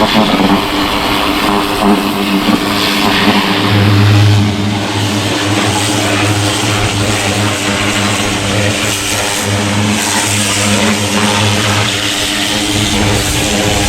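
Small Greenworks electric pressure washer running: a steady motor-and-pump hum over the hiss of the water spray. The hum grows stronger about four seconds in, then comes and goes.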